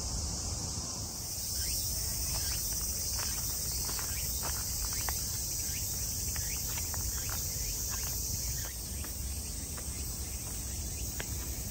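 A chorus of cicadas shrilling steadily in a high-pitched drone that dips a little about nine seconds in. Light scattered clicks of footsteps run on stone steps and a path through most of it, over a low rumble of wind or distant city.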